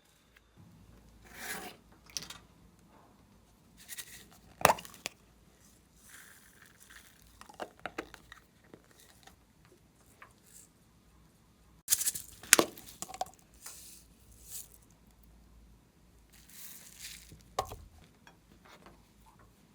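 Glossy slime being worked by hand: irregular crackles and crinkly, tearing sounds with a few sharp, loud pops, the loudest about five seconds in and a pair around twelve to thirteen seconds in.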